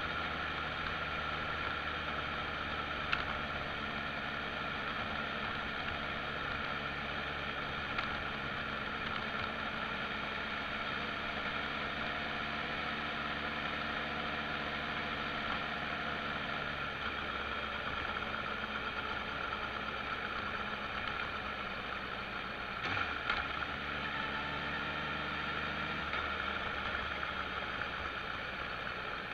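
Motorcycle engine running on the move, with steady wind and road noise on a bike-mounted camera; the engine note shifts about halfway through and again near the end, and a few brief knocks sound along the way.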